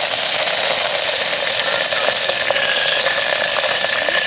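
A steaming pot boiling hard over an open wood fire: a steady loud hiss with scattered small crackles, and a thin steady high tone alongside.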